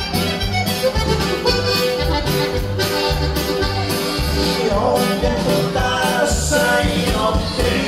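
A band playing Latin dance music led by an accordion, over a steady, even bass beat.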